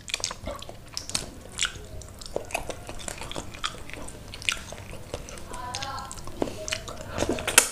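Close-miked wet chewing and lip-smacking of someone eating soft curried snapper-head meat, with many short sharp mouth clicks and the squelch of fingers pulling the sauced fish head apart.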